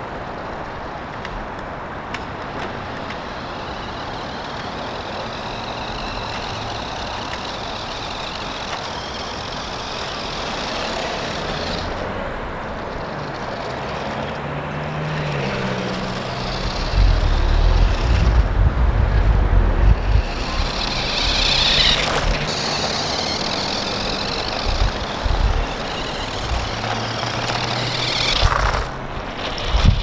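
Small battery-powered 1:18 scale RC truck driving over brick pavers, its electric motor whining up and down in pitch as it speeds up, slows and turns. From about halfway through, wind buffets the microphone with a gusty rumble that becomes the loudest sound.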